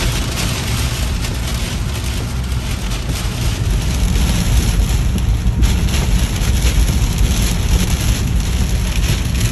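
Rain beating on a moving car's windows and body, heard from inside the cabin, over a steady low rumble of road and engine noise.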